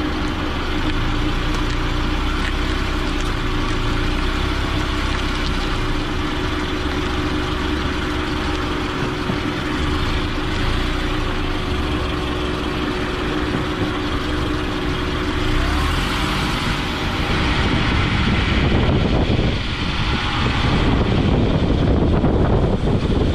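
A car driving, heard from under the body beside the front wheel: steady road and tyre noise with an engine hum. In the last five seconds the rumble grows louder and rougher, with wind buffeting the microphone.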